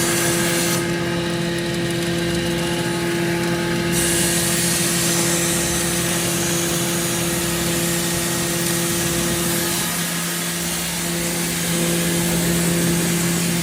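Chemical and limestone grinder machine running: a steady mechanical hum with a constant drone and a noisy rush over it.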